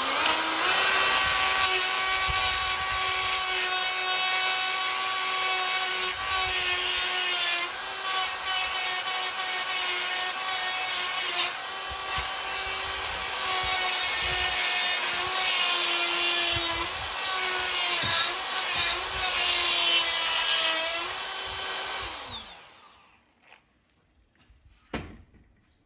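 Electric grinder running at full speed while a spark plug is ground flat: a steady high whine that sags slightly in pitch each time the work is pressed against it. About 22 seconds in it is switched off and spins down with a falling pitch.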